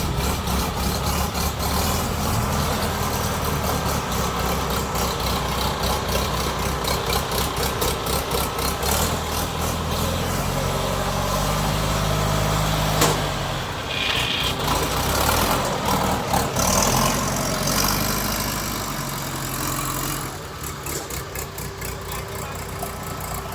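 Kubota DC70 combine harvester's diesel engine running steadily. Its note shifts about ten seconds in, a single sharp knock sounds about thirteen seconds in, and the engine is quieter over the last few seconds.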